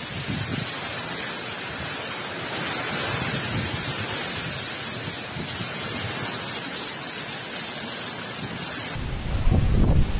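Heavy cyclone rain pouring steadily. About nine seconds in it gives way to louder, gusting wind rumble buffeting the microphone.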